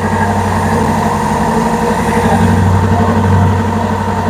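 Belt sander running steadily while sanding rough pallet-wood slats.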